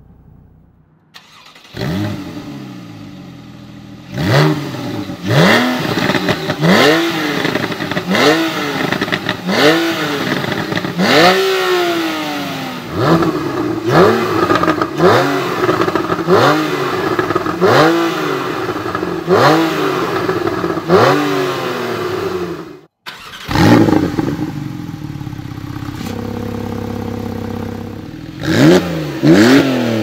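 Porsche 911 (991) Carrera flat-six starts about two seconds in. It settles, then is free-revved while stationary, with a long series of sharp blips rising and falling in pitch about once a second. After a short break it idles steadily, then gets two more quick revs near the end.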